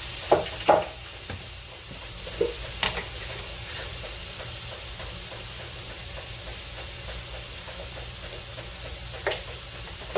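Pieces of meat sizzling as they fry in a non-stick wok, a steady hiss, with a few short knocks and clicks of utensils against the pan.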